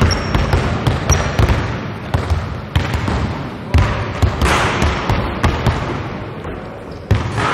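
Several basketballs bouncing on a hardwood court in an irregular, overlapping rhythm, each bounce echoing through a large sports hall.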